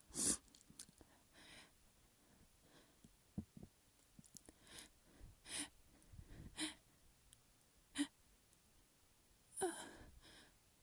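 A person's short, sharp breaths and sniffs through a tickled nose, about seven of them spaced out, with a longer gasping in-breath near the end: the build-up to a sneeze.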